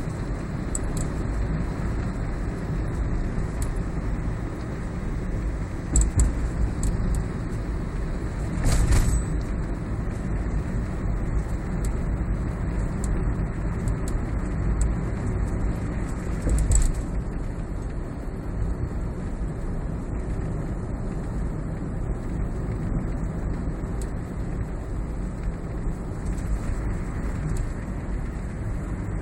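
Steady road and running noise inside a moving Toyota Prius cabin, with faint intermittent clicks and rattles from under the instrument panel: the abnormal noise being chased. Three louder thumps come about six, nine and seventeen seconds in.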